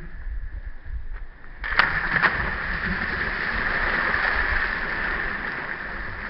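Two children jumping feet-first off a boat's bow into shallow water: a sudden double splash a little under two seconds in, the second a split second after the first, then a steady rush of churning, splashing water.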